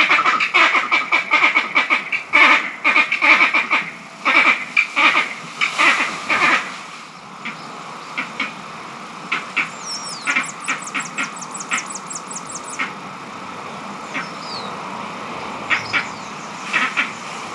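Barbados green monkeys giving harsh, rapid chattering calls, dense and loud for the first seven seconds, then thinning to scattered single calls. A fast, high ticking series and a few falling whistles come in midway. The calls are agitated ones, which the uploader had never heard before and guesses may be a territorial or troop dispute over the mango trees.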